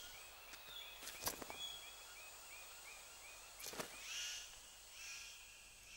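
Faint rainforest ambience: a small animal's short chirp repeated about three times a second, then fading out partway through. A couple of sharp clicks and soft hissing swells are also heard.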